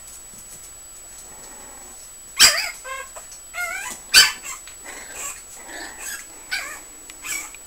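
Five-week-old puggle puppies yipping and yelping as they play-fight. Two sharp yelps, the loudest, come about two and a half and four seconds in, with smaller wavering yips and squeals between and after them.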